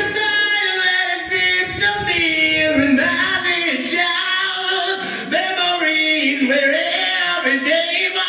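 Music: a song's vocal passage, with voices singing in bending, sustained phrases over no bass or drums.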